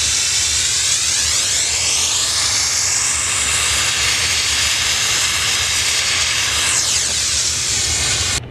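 Hot-water pressure washer with a green quarter-turn pressure nozzle, its 285°F jet hissing loudly as it blasts ice off asphalt shingles, with a steady low hum underneath. The hiss shifts up and down in tone as the wand moves and stops abruptly near the end.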